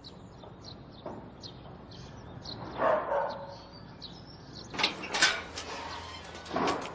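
A dog barking a few times, with small birds chirping throughout.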